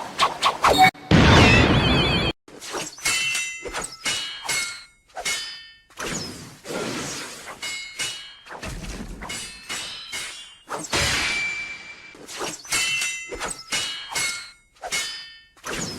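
Naruto anime battle sound effects. A dense summoning-jutsu burst cuts off about two seconds in. After it comes a rapid series of sword and kunai clashes: swishes and metal blade strikes that each ring briefly.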